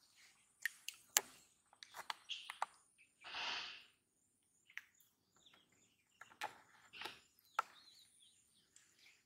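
Faint outdoor ambience of scattered short bird chirps and small clicks, with one brief soft burst of noise about three and a half seconds in.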